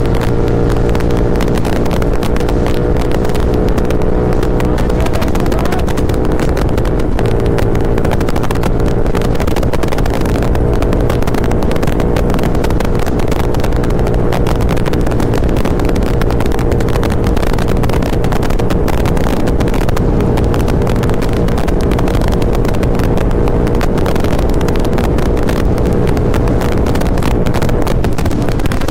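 Royal Enfield Continental GT650's 648 cc parallel-twin engine, fitted with a Fuel-X Pro module, running hard as the bike is ridden out toward its top end. The exhaust note holds a fairly steady pitch with a few small shifts.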